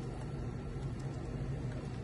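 Small electric motor of a battery-powered toy washing machine running with a steady low hum and a few faint clicks.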